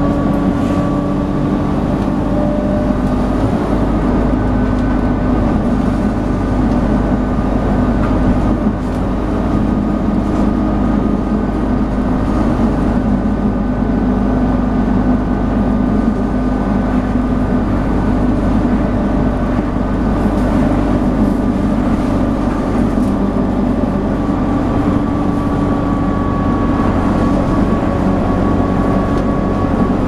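Dennis Dart SLF Alexander Enviro 200 single-deck bus heard from inside, running hard at a steady speed: a loud, even engine drone with road and tyre noise and a steady hoover-like whine over it.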